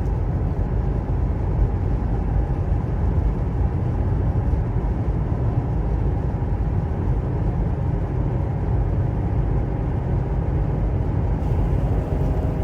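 Steady low rumble of a car driving on the road, with no distinct events, that cuts off sharply just after the end.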